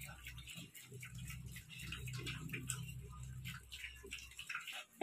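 Duroc × Large White piglets eating wet feed from a trough: irregular smacking, slurping and chewing clicks. A low steady hum underneath stops about four and a half seconds in.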